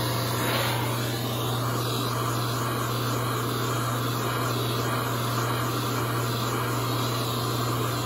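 Handheld propane torch with a flame-spreader tip, lit and burning steadily: an even, unbroken roar.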